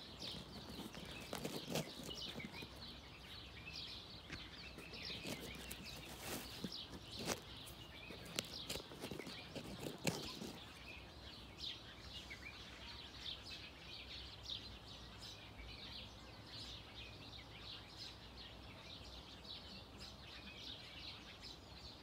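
Outdoor nature ambience: birds chirping, many short high chirps, over a faint low background hush, with a few soft knocks in the first half.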